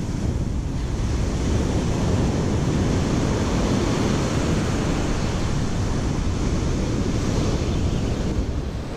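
Ocean surf breaking and washing up a sand beach, a steady rush that swells about a second in and eases near the end, with wind buffeting the microphone.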